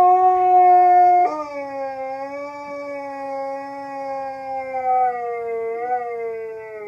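Husky howling: one long howl that holds a steady note for about a second, breaks suddenly to a new pitch, then slides slowly downward.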